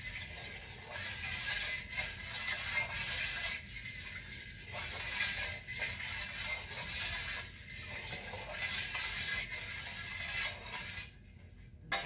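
Metal spoon stirring elderberry juice in a stainless steel bowl, scraping and clinking against the sides in an uneven rhythm while lemon juice is mixed in. The stirring stops about a second before the end.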